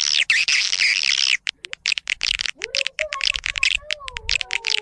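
Recorded edible-nest swiftlet calls of the kind played to lure swiftlets to a nesting house: dense, fast high chittering for the first second and a half, then quick separate clicks and chirps, with lower sliding tones joining in past the halfway mark.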